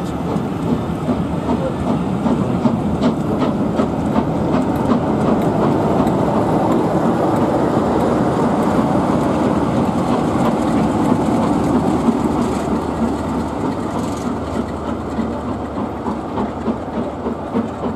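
A train's passenger coaches rolling past, wheels clicking over the rail joints. The sound builds as the diesel locomotive on the rear of the train goes by about halfway through, then eases as the train draws away.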